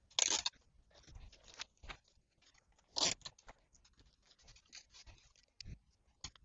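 Adhesive tape pulled off the roll in two short rips, one right at the start and one about three seconds in, with paper tubes rustling and crinkling as they are handled and taped.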